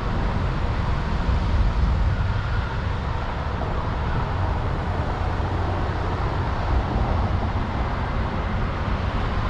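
Steady outdoor rumble with a hiss above it, unbroken and with no distinct events.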